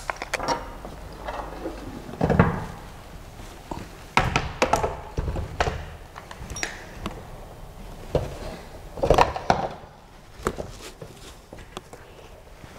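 Knocks, clunks and rattles of a Creality CR-6 SE 3D printer's metal gantry frame being handled and set onto its base, with the loudest thuds about two seconds in, around four to five seconds in, and about nine seconds in.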